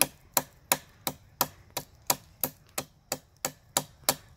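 Small hand blade chopping into a tree branch by hand: a steady run of sharp wooden knocks, about three a second.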